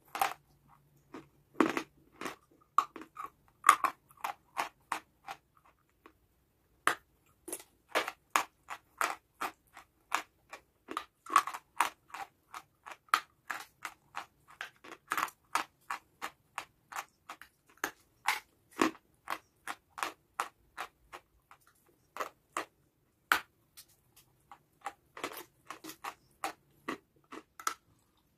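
Close-miked biting and chewing of hard chalky clay: a steady run of sharp, dry crunches, several a second, with a brief pause about six seconds in.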